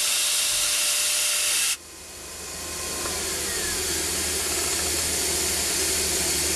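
Metalworking machine running: a steady hiss that cuts off abruptly about two seconds in. A quieter machine hum with faint whining tones follows and slowly grows louder.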